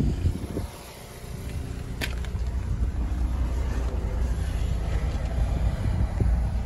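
Low, gusty wind rumble on the microphone with camera-handling noise. A thump comes at the start and a sharp click about two seconds in.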